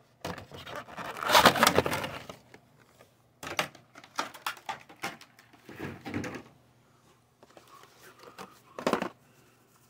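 Clear plastic wrapper crinkling as it is pulled off a set of trading cards, loudest for the first two seconds or so, then cards and plastic rustling and clicking as they are handled over a plastic tray, with a short crackle near the end.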